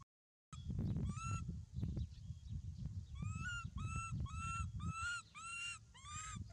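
Baby macaque giving a run of short, high, arched coo calls, one about a second in and then six in quick succession in the second half, over a low rumble.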